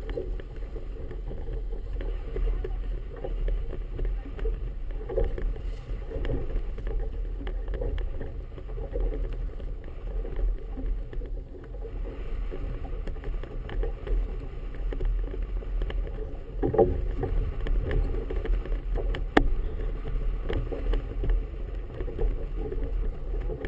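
Wind buffeting a boat-mounted GoPro Hero 2 in 10–15 knot wind, a fluttering low rumble, with choppy harbour water slapping against the hull. A few sharp knocks, the sharpest about 19 seconds in.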